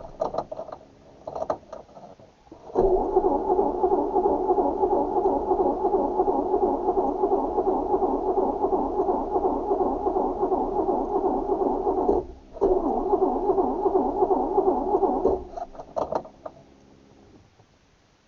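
Starter motor cranking an old car engine that won't fire: short cranks, then a long crank of about nine seconds, a brief pause, and another crank of about three seconds that stops without the engine catching, followed by a few clicks.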